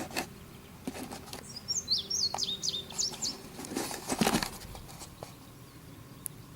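A small bird chirping a quick run of high notes about two seconds in, among several short rustling bumps, the loudest a little after four seconds. A faint steady hum lies underneath.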